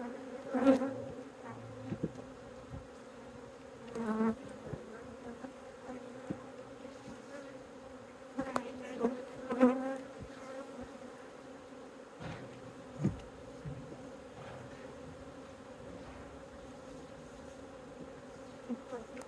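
Honeybees buzzing steadily at an open hive, with louder buzzes swelling and fading several times as single bees fly close past, and a few light knocks.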